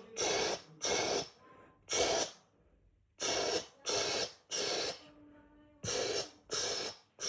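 A person imitating an aerosol spray with their mouth: short, sharp hisses, about eight of them, in quick runs of two or three.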